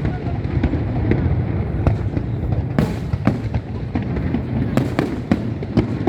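Aerial display fireworks bursting: a run of sharp bangs at uneven intervals, the loudest about three seconds in, over a steady low rumble.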